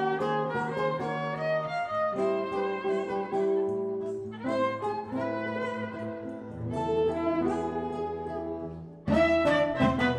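Live acoustic band music: a violin carries a solo melody over bass and guitar. About nine seconds in, the whole band comes in louder with drum strikes.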